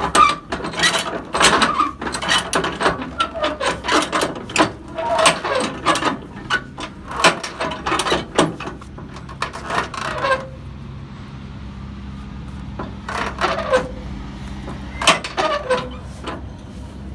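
Ratchet winch bar being worked in a flatbed strap winch: a run of sharp ratcheting clicks from the bar's ratchet head and the winch pawl for about ten seconds as the strap is tightened, then a pause and two short bursts of clicks near the end.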